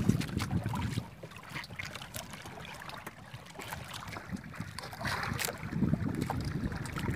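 Wind buffeting the microphone on a small open boat at sea, easing after the first second and picking up again near the end. Scattered light clicks and rustles come from fishing longline being hauled in by hand and coiled into a box.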